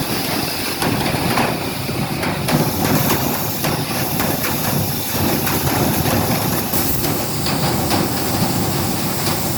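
Gasoline-powered industrial duct-cleaning vacuum running steadily with a loud rush of air, with frequent small clicks and rattles throughout as debris is pulled through the ductwork.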